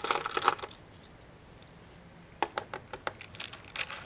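Small clicks and light taps of a screwdriver and tiny screws being worked out of a laptop's plastic bottom panel: a cluster of clicks at the start, a pause, then more scattered clicks about two and a half seconds in and again near the end.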